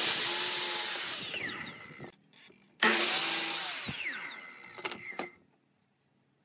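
Sliding compound mitre saw cutting a thin wooden board twice: each time the motor starts with a sudden whine, the blade bites through the wood, and the whine falls in pitch as the blade spins down after the trigger is released.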